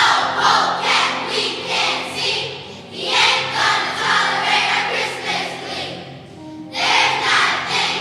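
Children's choir singing a song over instrumental accompaniment, in phrases with short breaks about three and six and a half seconds in.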